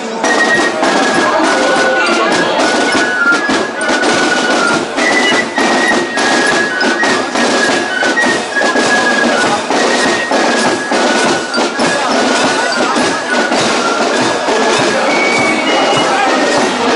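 Marching fife-and-drum corps playing a march: high fifes carry a stepping tune over a steady beat of drums.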